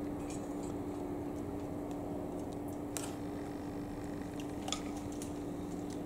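A steady low hum with a few light clicks and ticks from handling the camera.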